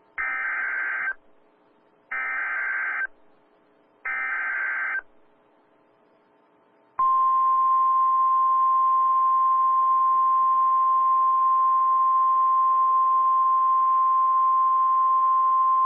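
NOAA Weather Radio Emergency Alert System signal heard through a weather radio. First come three buzzy, roughly one-second bursts of SAME header data tones, a second apart; then, about seven seconds in, the steady single-pitched 1050 Hz warning alarm tone starts and holds, the signal that a warning (here a severe thunderstorm warning) follows.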